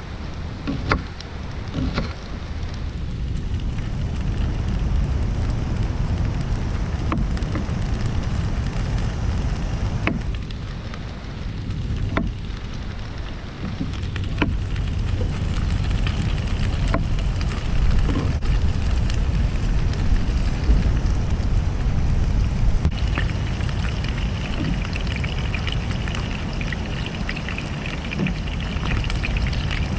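Heavy wind buffeting a GoPro's microphone: a steady loud rumble with scattered crackles and clicks. A hiss comes up alongside it about two-thirds of the way through.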